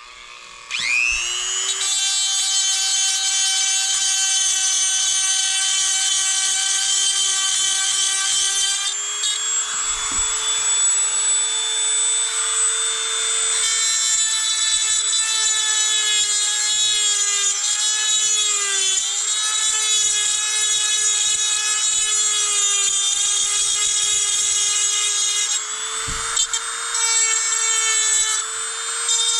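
Dremel rotary tool spinning up with a rising whine, then running at high speed while grinding metal. The pitch dips a little as it bites. It is grinding down a corner of the scooter engine's casting to clear the new variator.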